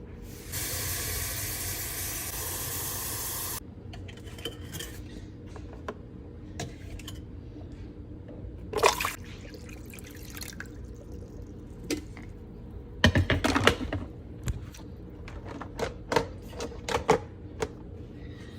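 Water running for about three seconds as the drip coffee maker is filled, starting and stopping abruptly. Then scattered clicks and knocks from the machine being handled, the loudest a cluster about thirteen seconds in.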